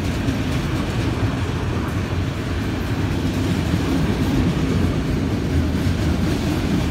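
Florida East Coast Railway freight train of autorack cars rolling past close by: a steady rumble of steel wheels on the rails.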